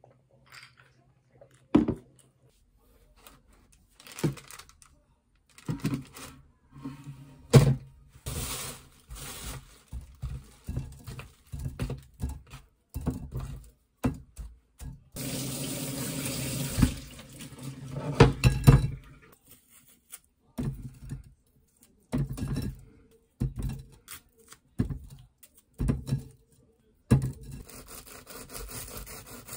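Strawberries being washed at a kitchen sink: knocks and rustles of the fruit being handled in a stainless mesh colander over a glass bowl, with tap water running for about two seconds midway. Near the end, a knife saws through a croissant on a wooden cutting board.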